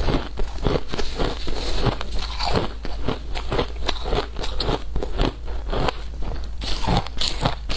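A mouth chewing shaved ice: rapid, crisp crunches, several a second, as the frozen ice is bitten and ground between the teeth.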